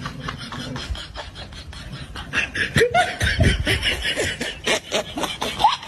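A person laughing in quick, breathy snickers, busiest from about two seconds in.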